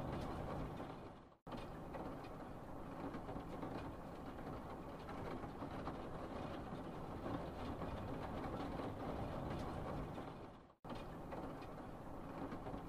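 Steady rumbling background noise with no distinct events. It fades out and cuts back in twice, about a second and a half in and again near the end.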